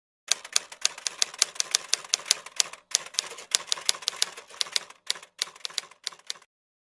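Typewriter sound effect: a rapid, irregular run of key clacks, several a second, with a couple of short breaks. It stops shortly before the end.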